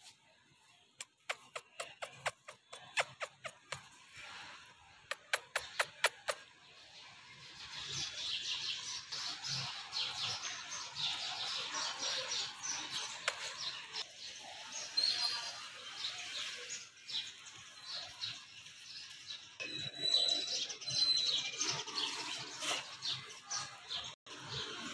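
Small birds chirping and twittering in a busy chatter, with a few short whistled notes. It is preceded by a run of about a dozen sharp clicks in quick succession during the first several seconds.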